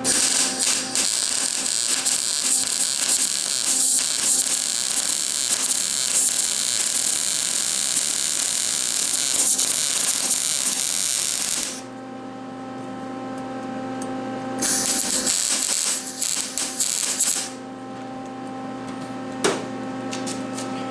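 Electric arc welder crackling as a weld bead is laid on steel: one long run of about twelve seconds, a pause, a second run of about three seconds, then a brief burst near the end, over a steady hum.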